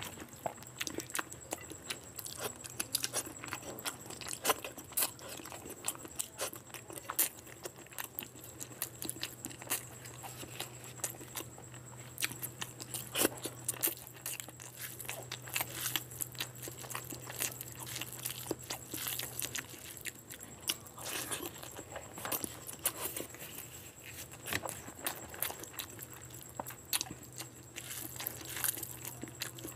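Close-miked eating sounds: a bare hand squishing and mixing rice with curry gravy and quail eggs on a plate, and chewing with the mouth full, heard as a constant run of small wet clicks and smacks.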